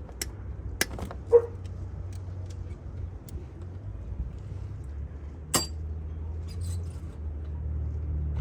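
Metal hand tools clinking and clanking on the engine while bolts are worked loose: a handful of sharp clinks, the loudest a ringing clank about a second and a half in and another sharp one a little past halfway, over a steady low hum.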